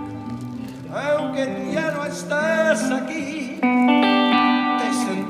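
Live band music in an instrumental passage: an electric guitar plays held lead notes over a bass line, with notes bending in pitch about a second in.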